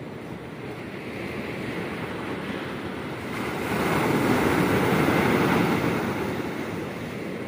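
Ocean surf: a steady wash of waves, with a wave breaking louder about halfway through and then fading.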